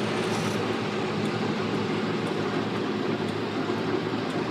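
Tractor engine running at a steady speed, an even, unchanging drone.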